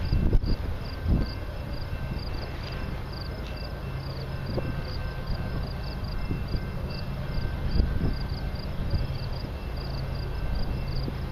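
Crickets chirping in short, quick, evenly repeated pulses over a steady low rumble.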